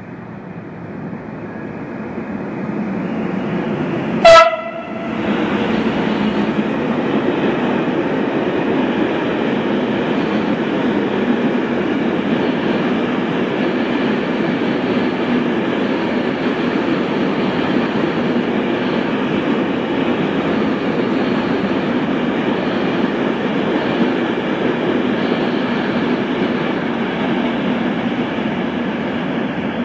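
Freight train passing at speed, its rumble building as the locomotive approaches. A very short horn blast about four seconds in is the loudest moment. After it comes the steady rumble and rattle of a long string of empty flat wagons rolling by.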